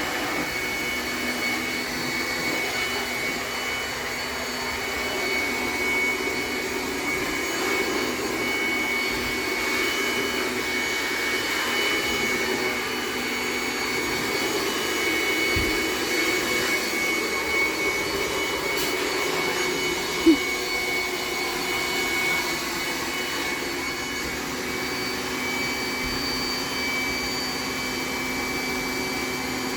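Steady whir of a running machine, with several thin high whining tones held over an even hiss. A single sharp click about twenty seconds in.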